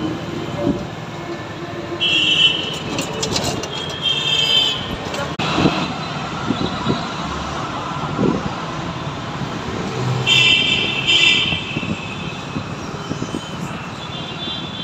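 Road traffic noise heard while moving through city traffic, with vehicle horns honking several times over a steady rumble of engines and tyres.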